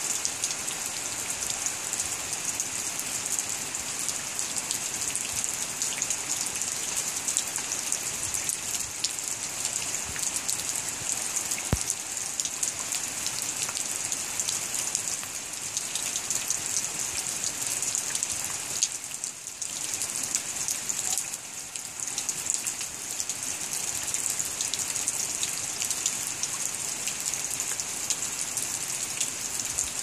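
Steady rain falling on a waterlogged garden, a dense hiss of drops pattering into flooded furrows and wet soil. It eases slightly for a couple of seconds past the middle, and a single sharp tick sounds about twelve seconds in.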